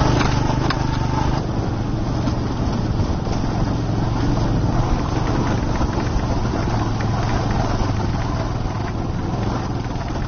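Motorcycle engine running steadily while riding a mountain road, with wind and road noise.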